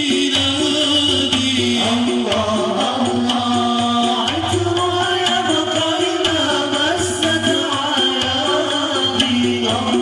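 Sholawat (Islamic devotional song) performed through a loudspeaker system: a wavering sung melody over hand-drum percussion with a steady beat.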